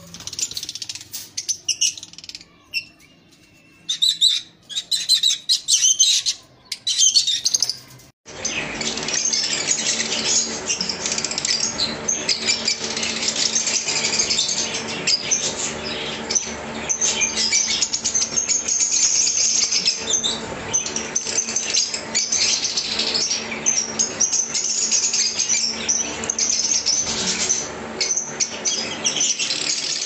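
A colony of caged lovebirds chirping: scattered short calls for the first several seconds, then, after a cut about eight seconds in, a dense continuous chatter of many birds over a steady low hum.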